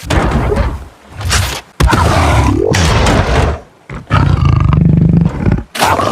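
Loud roaring sound effects in about four bursts, the second one with a pitch that dips and rises again.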